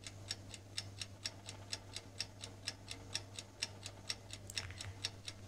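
Clock ticking quickly and evenly, about four ticks a second, with a faint steady low hum underneath.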